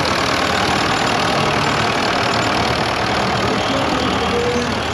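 Fordson Dexta tractor's engine idling steadily at close range.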